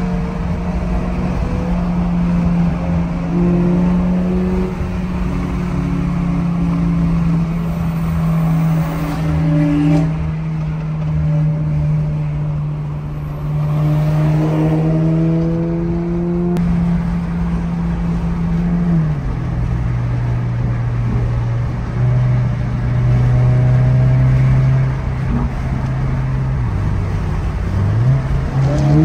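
2023 Toyota GR86's 2.4-litre flat-four engine and road noise heard from inside the cabin at freeway speed: a steady engine drone that drops in pitch a little past halfway and climbs again near the end.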